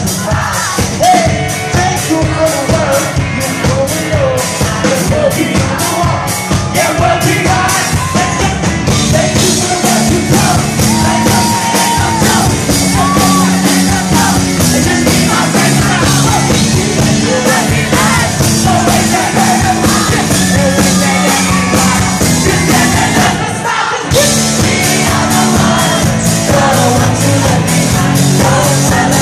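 Live pop band music: a male singer on a handheld microphone over drums and a steady beat. Loud throughout, the music briefly thins out about five seconds before the end, then comes straight back in.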